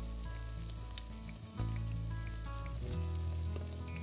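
Beer-battered fish fillets deep-frying in hot oil, a steady sizzle with small crackles and pops. Soft background music with held low notes that change a couple of times plays underneath.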